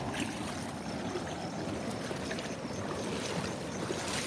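Shallow floodwater flowing steadily over the ground, with a few small splashes here and there.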